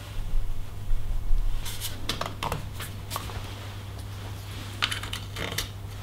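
Metal clinks and light knocks as a threaded bottom bracket bearing press is undone and taken off a bike frame, a quick run of sharp clinks about two to three seconds in and a couple more near the end, over a low steady hum.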